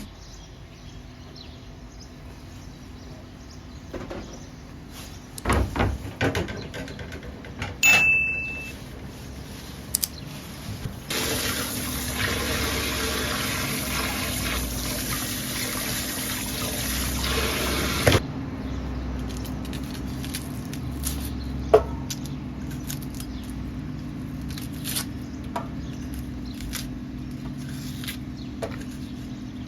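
Water pouring steadily for about seven seconds, starting and stopping abruptly near the middle. Before it come a few knocks and a ringing metal clink of cookware.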